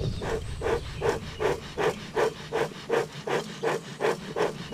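Bee smoker bellows pumped in a steady rhythm, short airy puffs about three a second, fanning the burning pine-needle fuel to get a coal bed going.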